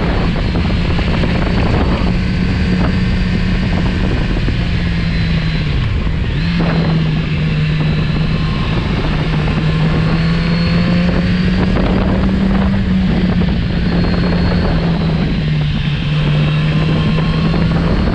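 Kawasaki Z900RS Cafe's inline-four engine running at steady road speed over a constant rush of wind and road noise. About six seconds in, the engine note drops sharply and picks straight back up, and later it eases up and down a little.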